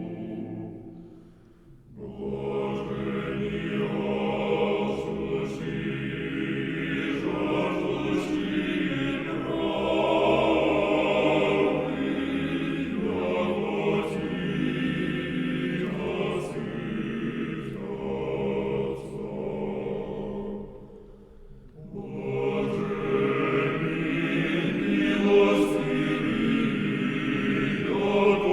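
Background music: a choir singing a slow sacred chant, with short breaks between phrases about two seconds in and about twenty-one seconds in.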